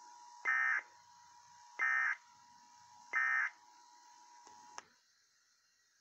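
Emergency Alert System end-of-message tones: three short, identical buzzing data bursts about a second and a half apart, marking the end of the alert, played through a laptop's speakers. A faint steady tone runs underneath and cuts off with a click near the end.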